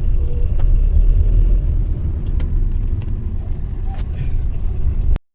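Low, steady rumble of a car driving, heard from inside the cabin, with a few faint clicks; it cuts off abruptly near the end.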